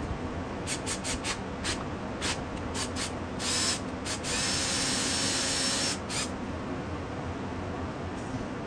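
Cordless drill boring a hole through the car's dashboard panel: a short burst, then about two seconds of steady drilling that cuts off. A few light clicks come before it.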